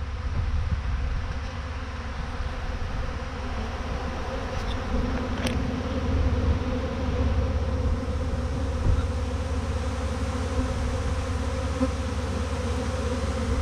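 A large swarm of honeybees buzzing in a dense, steady hum, with bees flying close past the microphone. The swarm is still airborne, its bees circling a bush while they settle around their queen.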